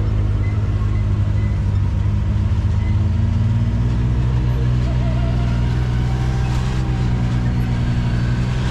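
Side-by-side UTV engine running steadily while driving, with the hiss of wind and tyres over it; the engine note shifts up slightly about three and a half seconds in.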